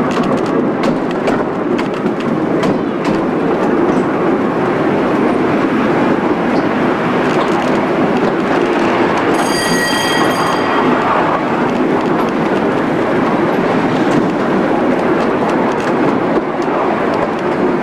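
Steady rumble and rattle of a small passenger car's wheels running on miniature railway track, heard from on board, with scattered clicks. A brief high squeal lasting about a second comes about halfway through.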